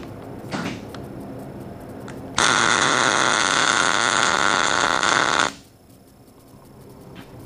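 Electric arc welding on a steel beam, a tack weld: the steady sound of the arc starts suddenly about two and a half seconds in, runs for about three seconds and cuts off abruptly.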